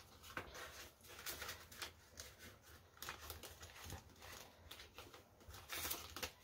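Faint rustling and crinkling of paper banknotes and the binder's plastic envelope pages being handled, in scattered short bits, a little louder near the end.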